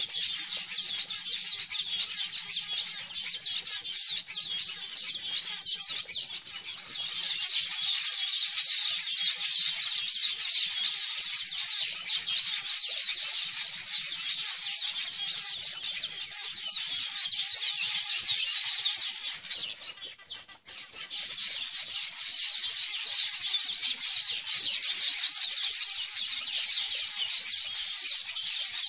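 Many weaver birds chattering at once in a dense, continuous high-pitched din of rapid calls. It dips briefly about twenty seconds in.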